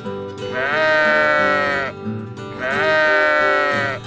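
Sheep bleating: two long baas, each rising at the start and then holding, over steady background music.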